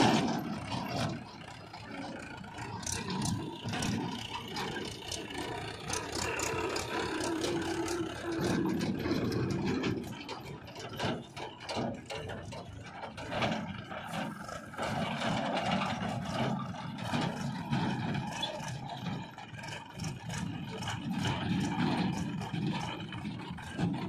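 Mahindra 475 DI tractor's four-cylinder diesel engine running as it pulls a trolley over rough dirt ground, with frequent short clanks and rattles throughout.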